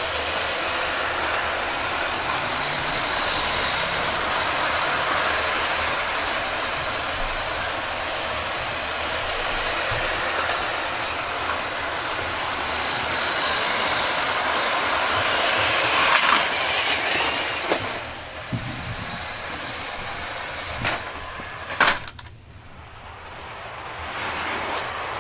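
00 gauge model trains running on sectional track: a steady whirr of small electric motors and wheels rolling on the rails. Several sharp knocks come in the last third, and the sound drops away briefly just before the end before picking up again.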